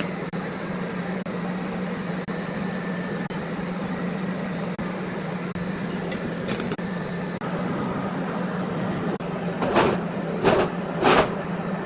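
Steady machine hum with a continuous hiss from metal-working, with three short, louder noises close together near the end.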